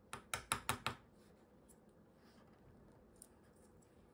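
A tiny screwdriver scraping and clicking at a small micro display optical module while prying out a lens: a quick run of about six sharp strokes in the first second, then only faint scratching and one small tick.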